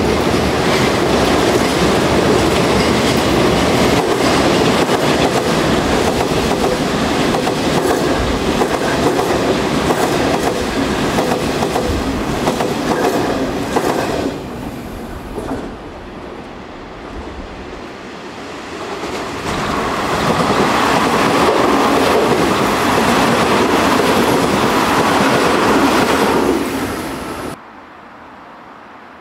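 Nankai Railway electric commuter trains passing the station at speed on the elevated quadruple track, their running noise full of wheel clatter. Two loud passes come one after the other with a lull between them, and the sound cuts off suddenly near the end.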